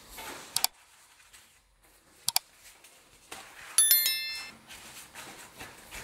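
Kitchenware clinking during cooking: two sharp double clicks, then about four seconds in a bright, ringing clink that dies away within half a second.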